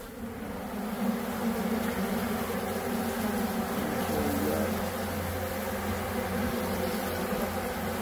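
Many honeybees buzzing around an opened hive in a roof: a steady, unbroken hum.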